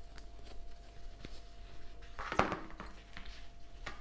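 Small clicks and rustles of a crochet hook working t-shirt yarn by hand, with one louder knock about two and a half seconds in.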